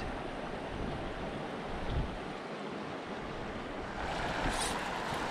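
Shallow rocky creek running over stones, a steady rushing of water that gets a little louder about four seconds in.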